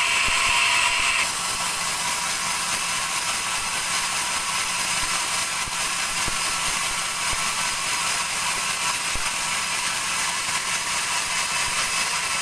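Large sawmill bandsaw sawing dry teak, a steady mechanical noise. A higher-pitched whine in it drops away about a second in.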